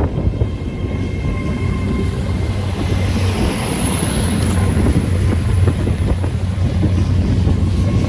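Great Western Railway Class 800 train pulling out of the station: a steady, loud low hum and rumble with a few thin, high steady whine tones above it.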